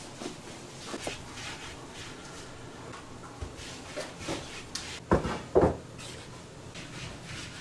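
Hands working dough on a wooden work table: soft rubbing with scattered light knocks, and two louder thumps about five seconds in.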